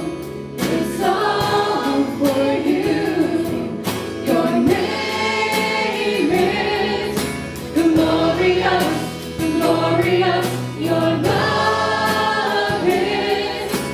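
Church worship band playing a contemporary worship song live, with voices singing over the band and a steady drum beat.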